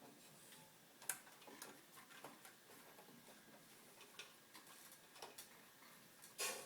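Faint, irregular clicks and light taps of small parts being handled during the vacuum cord repair, with one louder short knock near the end.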